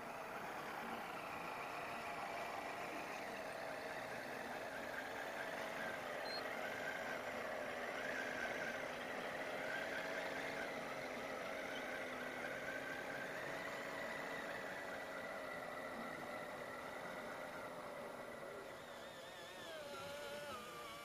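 Radio-controlled model truck running over a dirt trial course, its motor and gears whining steadily with the pitch wavering up and down as the throttle changes.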